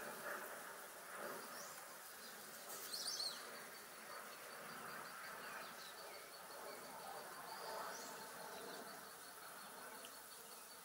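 A steady, high-pitched insect trill, made of rapid even pulses, with a few short bird chirps about three seconds in and again near eight seconds, over faint park background noise.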